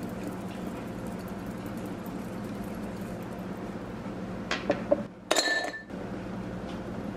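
A ripple-textured drinking glass clinking against the countertop with a brief ring, after a few lighter knocks, about five seconds in, over a steady low hum.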